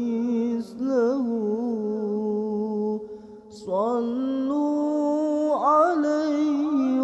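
Arabic nasheed sung in long, drawn-out wavering notes, with no words made out. The singing drops away briefly about three seconds in, then resumes on a rising phrase.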